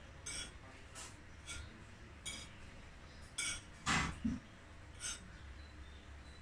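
Crockery clinking during a meal: short, sharp taps on plates and dishes spread about a second apart, with one louder knock about four seconds in.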